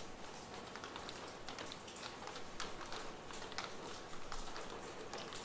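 Light rain falling: faint steady hiss with individual drops tapping irregularly.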